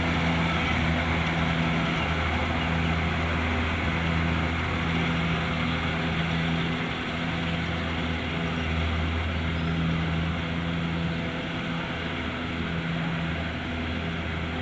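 Kubota DC-70 Plus rice combine harvester running steadily: a continuous diesel engine hum under a broad mechanical whir.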